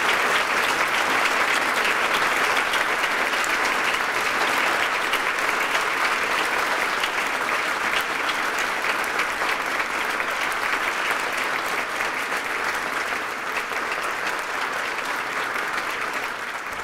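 A roomful of people applauding steadily and at length, easing slightly near the end.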